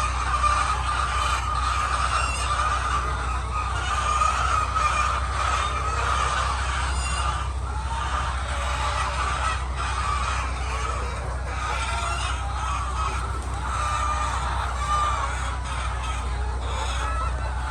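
A flock of many hens clucking and squawking together in a dense, continuous chatter, over a steady low hum.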